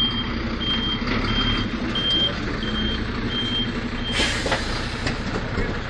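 Reversing alarm of a MAN GBA 2,5/16 fire engine beeping steadily, about one and a half beeps a second, over its running diesel engine. The beeping stops about four seconds in and is followed by a short sharp hiss of air, as the truck's air brakes set.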